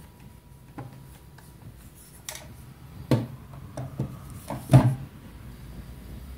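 Handling noise from a full-metal replica rifle: irregular knocks and clicks of hard parts being moved, the loudest about three seconds in and again near five seconds.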